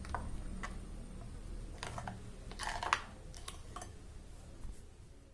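Flour batter being stirred in a bowl: faint, irregular clicks and scrapes of the stirring utensil against the bowl, a little louder about two and three seconds in.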